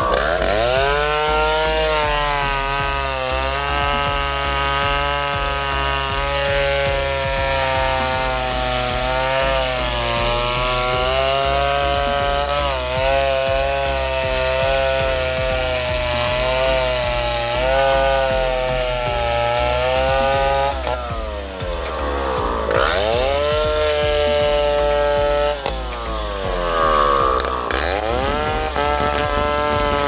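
Two-stroke chainsaw cutting through a fallen durian trunk, its engine pitch wavering as the chain bites into the wood. Twice in the second half the pitch drops sharply and climbs back up as the saw is eased off and revved again.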